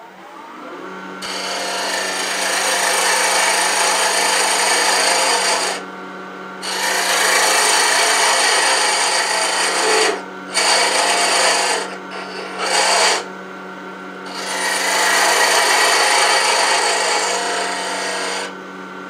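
A wood lathe runs with a steady hum that comes in about a second in, while a beading and parting tool cuts the spinning wooden handle blank down to fit a ferrule. The cutting hiss comes in several long passes broken by short pauses.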